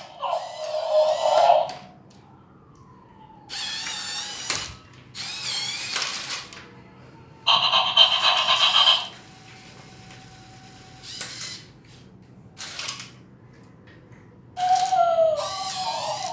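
Remote-control robot toy dog going through its moves: short bursts of electronic sound effects from its speaker alternate with the whirring and ratcheting of its small plastic-geared leg motors. There are about six bursts of a second or two each, with quiet gaps between them.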